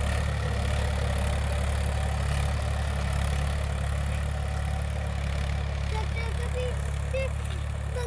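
Farm tractor's diesel engine running steadily under load while ploughing, a constant low hum. A few faint warbling pitched sounds come in near the end.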